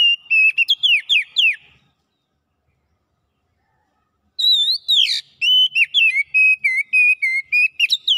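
Oriental magpie-robin (kacer) singing loud, quick whistled notes. One phrase ends about two seconds in, and after a pause of over two seconds a longer phrase of slurred whistles and warbles starts around four seconds in.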